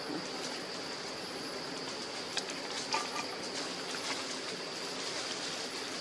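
Steady outdoor forest background with a constant high-pitched hiss and a few faint short clicks and chirps.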